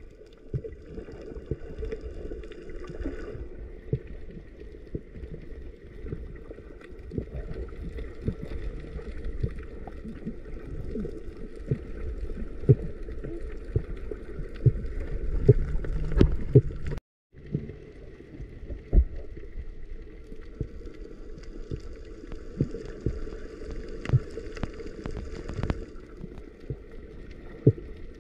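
Muffled underwater noise picked up by a submerged camera: a steady low rush of water with many scattered sharp clicks and knocks. The sound cuts out for a moment a little past the middle.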